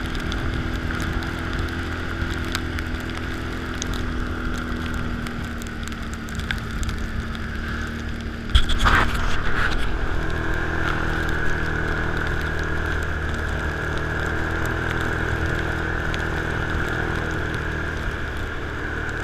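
Can-Am ATV engine running steadily while riding, with a steady hiss. About eight and a half seconds in, a sudden louder burst, after which a higher steady tone in the engine note stands out more.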